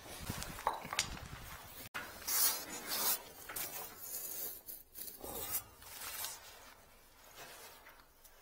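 Irregular rustling and scraping as the camera and clothing rub and shift while someone moves through a cramped space, louder in the first half and fading toward the end.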